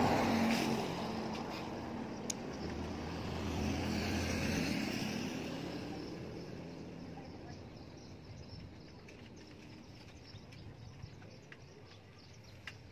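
Cars passing on the road: tyre and engine noise, loudest at the start and swelling again about four to five seconds in, then fading away. A few small knocks sound in the quieter second half.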